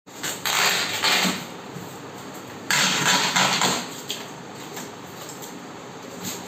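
A cardboard appliance box being unpacked: plastic packing straps and tape cut and pulled off, the cardboard scraping and rustling. Two loud noisy stretches of about a second each, near the start and about three seconds in.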